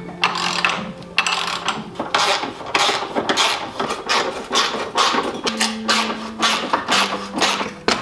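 Ratchet wrench clicking and metal tools scraping while front suspension bolts are worked loose, the clicks coming faster in the second half, over background music.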